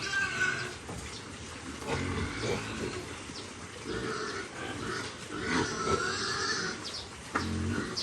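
Hungry piglets grunting and squealing over and over at feeding time, short high squeals overlapping lower grunts.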